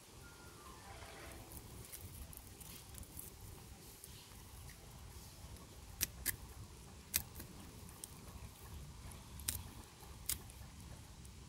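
A small knife blade cutting and picking at plastic raffia string wrapped around a bonsai fig's trunks: faint rustling of the strands, with a handful of sharp snaps, the loudest about six and seven seconds in.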